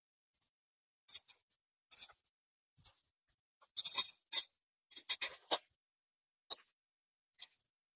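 Short, irregular rustles and scrapes from a pop-up privacy tent's nylon fabric and frame being handled, busiest around four to five and a half seconds in.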